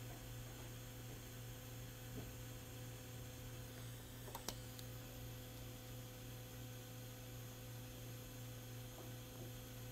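Steady low electrical mains hum, with a faint click about two seconds in and a sharper click a little before halfway through.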